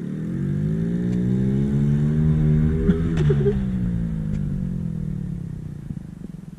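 Small pit bike engine revving up for about three seconds, then winding back down as the bike is ridden, with a couple of sharp clicks near the peak.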